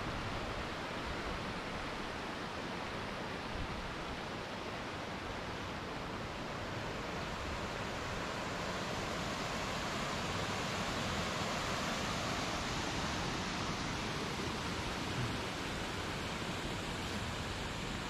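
Steady, even rushing noise with no pitch or rhythm, holding at much the same level throughout.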